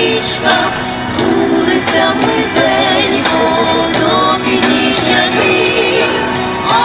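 A song with a singing voice over instrumental backing and a steady beat.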